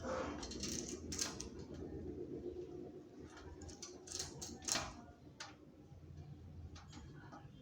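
Scattered light clicks and knocks, the sharpest about a second in and two close together near the middle, over a low steady hum.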